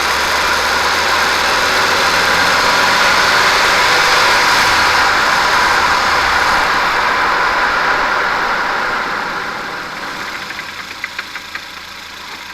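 Ford Fiesta on the move, its steady road and engine noise easing off as the car slows under braking. Near the end, a quick run of clicks: the clicking under braking from a failed offside driveshaft support bearing.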